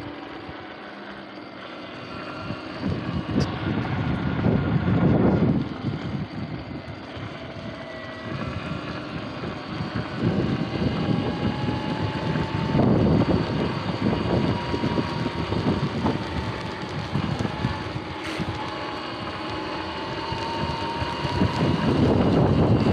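Sur-Ron X electric dirt bike riding on a wet path: a thin motor whine that slowly rises and falls in pitch with speed, over tyre hiss and wind buffeting the microphone, which surges louder several times.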